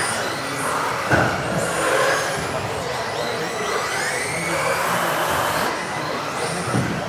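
Several electric 1:10-scale RC off-road buggies racing on a carpet track in a large hall, their motors whining up and down in pitch as they accelerate and brake over tyre noise. There is a sharp knock about a second in and a smaller one near the end.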